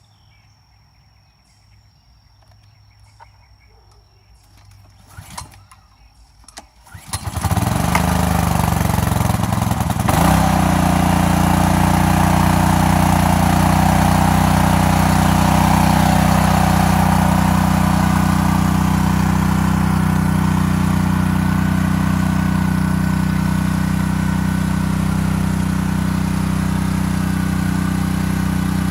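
Honda pressure washer's small four-stroke gasoline engine being pull-started: after a few faint clicks and a short rattle, it catches about seven seconds in and settles into a steady, loud run.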